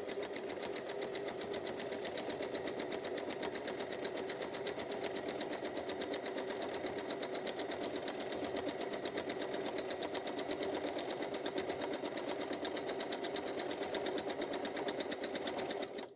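Domestic sewing machine free-motion quilting with a hopping foot, feed dogs dropped, running at a steady speed with a fast, even ticking of needle and foot strokes. It stops abruptly near the end.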